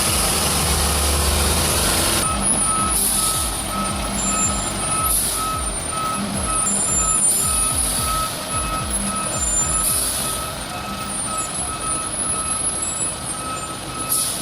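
Heavy truck running with a low engine rumble. From about two seconds in, a reversing alarm beeps steadily, with short bursts of hiss every couple of seconds.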